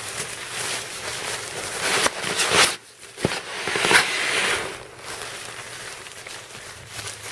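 Thin nylon Exped Schnozzle pump bag crinkling and rustling as it is fluffed full of air, rolled down and squeezed to push air into the sleeping pad, louder about two and four seconds in.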